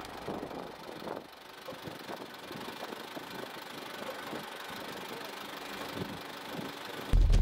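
Patrol car's engine running as the car moves slowly over a dirt lot, with faint irregular crackles. Near the end a sudden louder low rumble cuts in.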